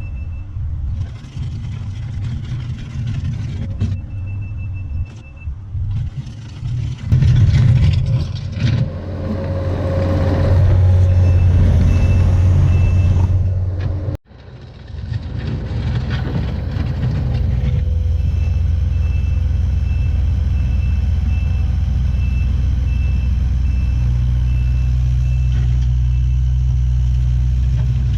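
Heavy machinery engine running with a low rumble, the revs swelling and falling, while a back-up alarm beeps in spells. The engine drops out abruptly about halfway through, then comes back as a steadier drone with the alarm beeping on and off.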